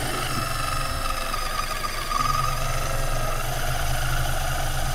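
Electric fishing reel winding a hooked fish up from deep water: a thin, steady motor whine that fades out after about three seconds, over a low, steady engine hum.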